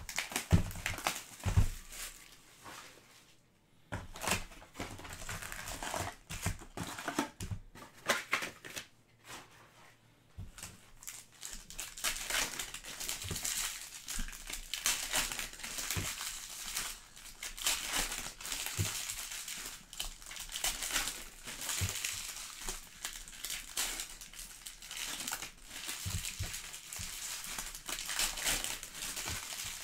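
Foil trading-card packs (Panini Prizm Premier League soccer) crinkling and crackling as they are handled and torn open by hand. There are a couple of short lulls early on, then near-continuous crinkling from about ten seconds in.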